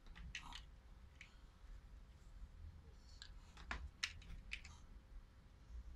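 A few faint, scattered clicks of plastic toy building blocks being handled and snapped together.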